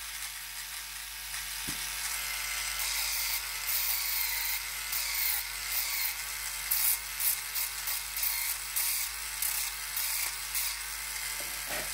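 Clatronic battery-powered electric nail file running with a steady motor hum. From about three seconds in, its spinning file grinds against a fingernail in repeated short rasps, and the hum wavers with each press.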